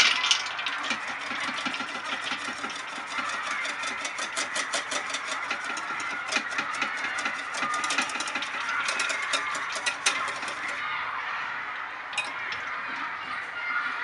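Whipping cream being beaten by hand with a wire balloon whisk in a plastic bowl: rapid, even scraping and tapping strokes about five a second. The whisking stops about eleven seconds in, leaving a few single taps.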